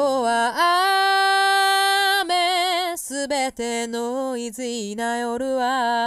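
A female voice singing alone, with no instruments under it. She holds one long note with vibrato, then sings a line of shorter, wavering notes.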